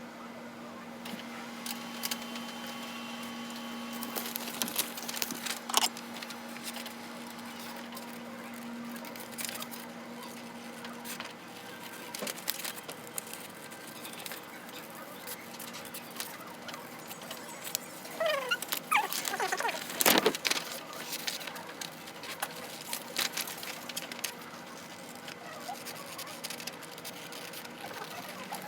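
Scattered clicks and taps of desk work at an office computer keyboard, over a steady low hum that stops about eleven seconds in. Near the two-thirds mark come a few short squeaky glides, then a sharp knock.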